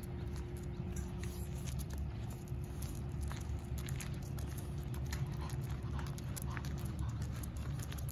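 Footsteps on asphalt: irregular light clicks from a Cavalier King Charles Spaniel's paws and claws and the walker's steps, over a steady low rumble.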